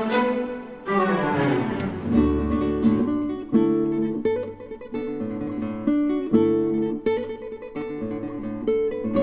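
Background music on acoustic guitar: a full chord rings out about a second in, followed by a run of single plucked notes and chords.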